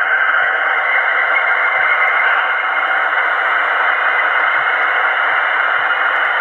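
Märklin H0 V 320 001 model's digital sound decoder playing the diesel locomotive's operating sound (function F2) through its small onboard speaker: a steady engine running noise, thin and tinny, with little bass.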